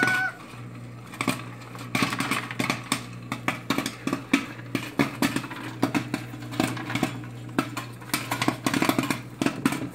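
Popcorn kernels popping in a popcorn machine: a dense, irregular crackle of sharp pops, picking up about a second in, over the machine's steady hum.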